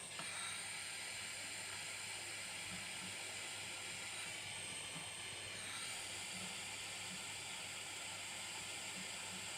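Steady hiss of a small gas torch flame heating a connector terminal for soldering.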